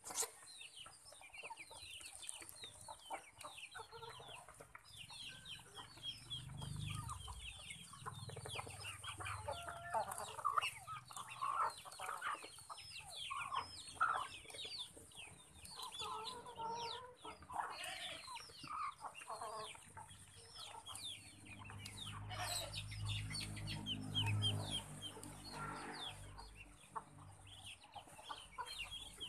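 A flock of chickens clucking, over constant, rapid, high peeping calls that slide downward. Louder mid-pitched clucks cluster in the middle.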